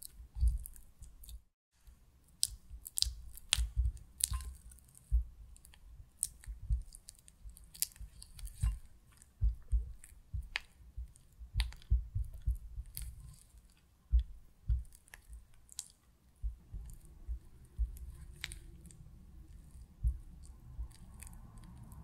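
Silicone spatula mashing and stirring cream cheese in a glass bowl: irregular sticky squelches and short taps as the cheese is worked smooth.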